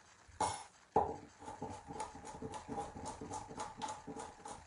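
Kitchen knife slicing bell peppers on a bamboo cutting board: a quick run of blade knocks, about four a second, with a sharper knock about a second in.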